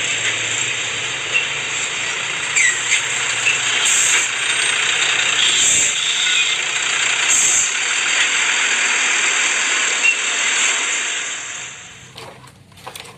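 Heavy LPG tanker trucks with their engines running: a steady rush of engine and road noise with a faint low hum and a few short squeaks, dropping away near the end.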